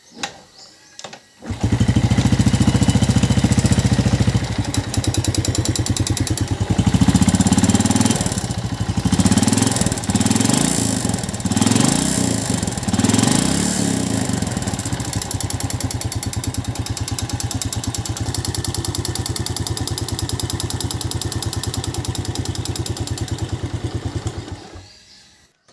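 Yamaha New Jupiter Z single-cylinder four-stroke engine starting, revved up and down several times, then running steadily before it is switched off near the end. It sounds very rough, which the mechanic reckons is typical of a worn piston.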